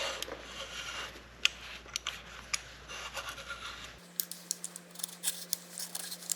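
Small metal clicks and light scraping as AR-15 lower receiver parts (pins, springs and tools) are handled and fitted.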